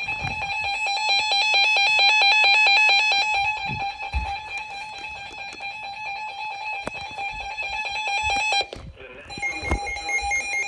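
Emergency Alert System alert tones: rapid, regular electronic beeping over a steady tone, loudest in the first three seconds. It breaks off briefly near the end and gives way to a different steady alert tone.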